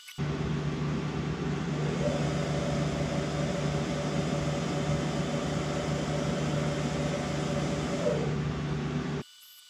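Tormach 1100MX CNC mill spindle running steadily in low belt range, starting suddenly and cutting off about nine seconds in, with a higher whine that comes in about two seconds in and drops away near eight seconds. The spindle is turning faster than the commanded RPM, which the owner traces to the spindle speed override being set high.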